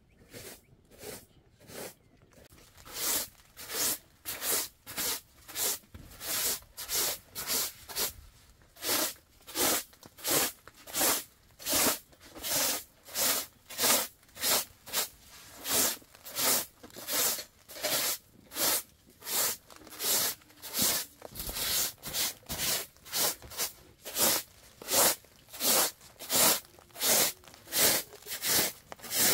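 A steady rhythm of short rasping strokes, about two a second, faint at first and louder from about two seconds in.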